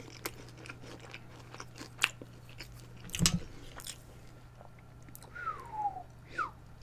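Close-miked chewing of cheese-crusted baked macaroni, with soft crunches and mouth clicks. About three seconds in there is a knock as the glass baking dish is lifted off the wooden board, and near the end two short falling squeaks.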